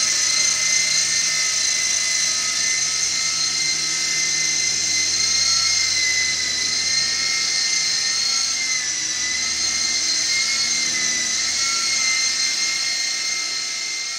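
Silverlit Sky Eye toy RC helicopter flying: a steady high-pitched whine from its small electric motors and spinning rotors, the pitch wavering a little as it moves.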